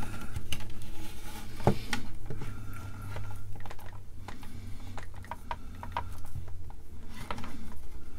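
An old, stiff line cord being twisted and pulled through the strain-relief opening of a plastic case: scattered small clicks, scrapes and rubbing, the sharpest click about two seconds in. The cord is stiff from having been twisted for so long.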